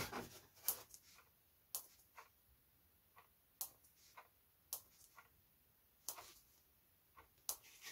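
Faint, scattered clicks and short scrapes, about ten in eight seconds, as a piece of 4 mm foam board is handled and worked on a workbench.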